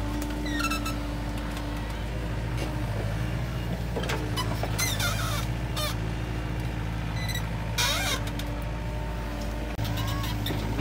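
Hitachi mini excavator's diesel engine running steadily as the arm and bucket work in wet mud. Several brief high-pitched squeaks and sharp clatters come over it.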